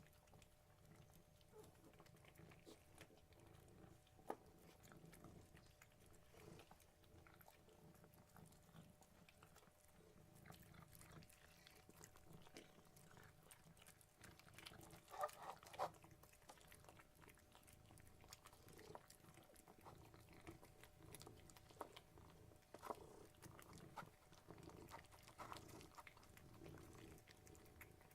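Three domestic cats purring, a faint, steady low rumble. Small clicks and mouth noises are scattered through it, with a cluster of louder ones about fifteen seconds in.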